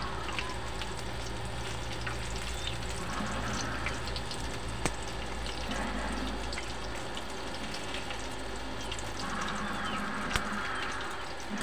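Pork legs deep-frying in hot oil in a steel wok: a steady bubbling sizzle with occasional sharp pops.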